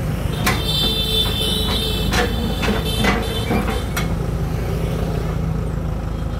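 Steel loading ramps clanking and ringing as they are lifted and dragged at the back of a truck, several metal knocks in the first four seconds, over the steady low running of an idling engine.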